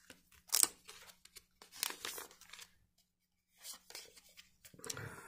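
Scissors cutting open a trading-card pack, with the wrapper crinkling and tearing, in several short bursts.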